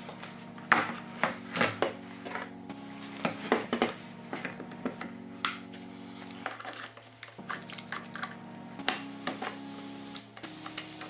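Background music under a scatter of sharp plastic-and-metal clicks and clacks as a Festool Domino joiner is handled and its fence adjusted on a workbench; the tool's motor is not running.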